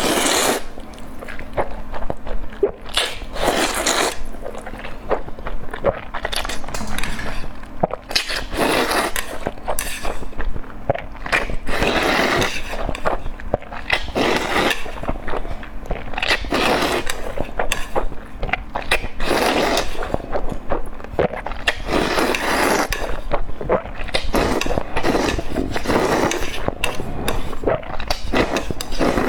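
Close-miked eating: bites and chewing in noisy bursts every second or two, with small clicks between them.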